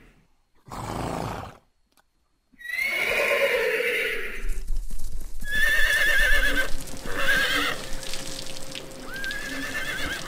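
Horses whinnying: several quavering neighs, the longest a couple of seconds in and shorter ones after, the last rising at the start. A short breathy noise comes about a second in.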